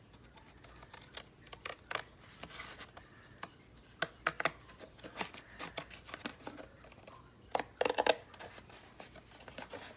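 Scissors snipping through paper and card packaging, with scattered crisp clicks and paper rustles; the loudest run of snips comes about eight seconds in.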